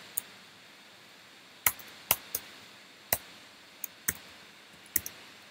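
Scattered sharp clicks of a computer keyboard and mouse, about nine in all, at uneven gaps from a fraction of a second to about a second, over faint steady hiss.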